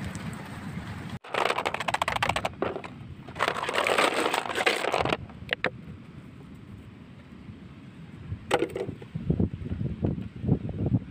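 Snail shells and small crabs clattering in two dense bursts as they are tipped from a plastic bag into a plastic tub. A few sharp clicks and scuffling follow as the shells are handled.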